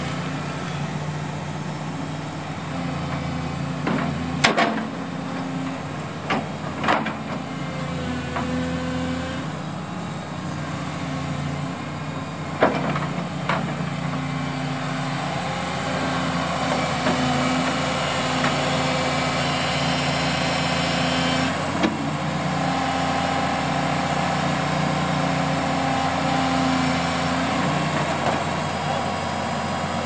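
Hitachi hydraulic crawler excavator's diesel engine running steadily while the boom, arm and bucket are worked, a little louder in the second half. Several sharp knocks are heard along the way.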